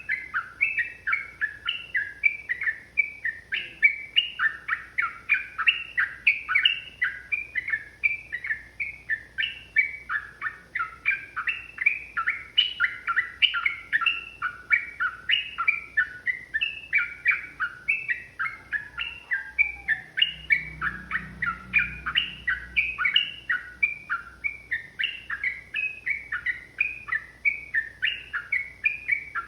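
Yellow-vented bulbul (trucukan) song: a fast, unbroken run of quick chattering notes, several a second, kept up without pause.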